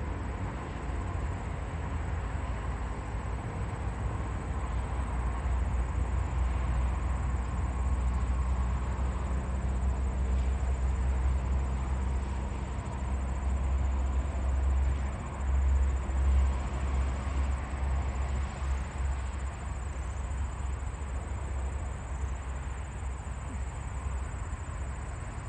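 Outdoor ambience after a siren test: a steady low rumble of wind and road traffic, swelling for a while in the middle, with faint distant outdoor warning sirens holding a steady tone in the background.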